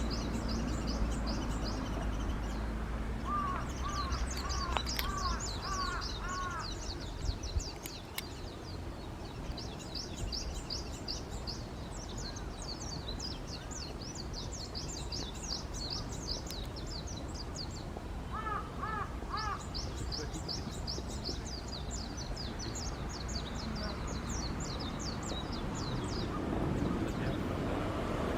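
A crow cawing: a run of about seven caws, then three more about two-thirds of the way through. Small birds chirp and trill high up, and a low steady rumble runs underneath, heavier at the start.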